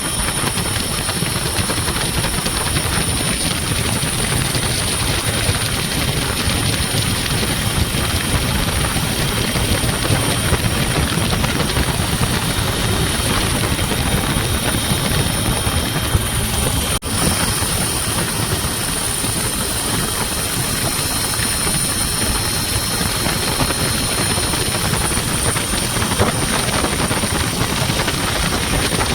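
Helicopter flying low overhead, a steady din of rotor and engine noise, broken once by a very brief dropout about two-thirds of the way through.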